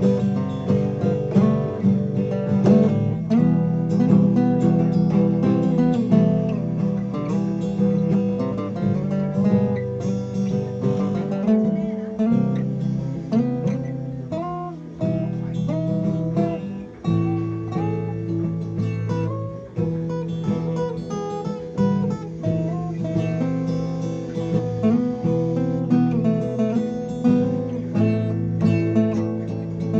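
A guitar being played, strummed chords mixed with picked melody notes, as the new instrument's sound is tried out.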